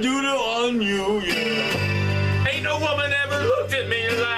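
Acoustic guitar playing, with a man's voice singing a wavering melody over it.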